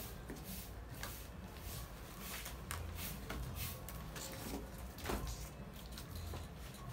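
A pack of small cardboard drink cartons being handled and turned over, with scattered light scrapes, rustles and soft knocks.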